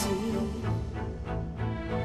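Music: a song with bass and sustained pitched notes.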